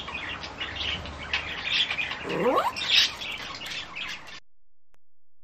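Small birds chirping in quick, repeated short calls, with one brief rising whine about two and a half seconds in; it all cuts off suddenly about four seconds in.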